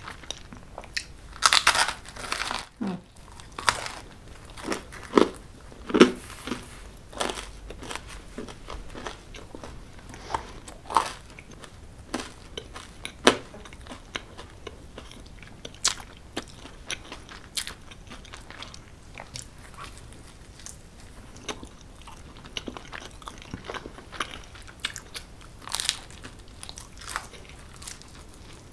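A person biting into and chewing a slice of cheese pizza: sharp crunches, loudest about one and a half to two and a half seconds in, then chewing with scattered softer crunches.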